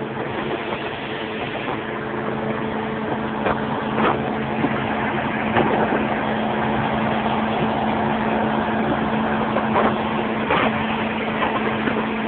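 Boat engine running at a steady speed, a constant hum under a rushing noise, with a few short knocks along the way.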